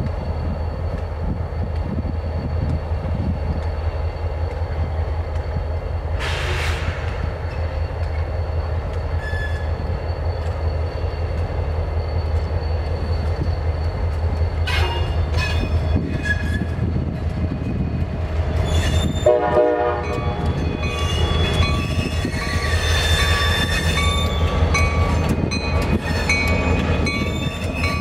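EMD SD40-2 diesel-electric locomotive approaching slowly, its 16-cylinder two-stroke diesel engine running with a steady low rumble. From about halfway on, the wheels squeal on the curving track.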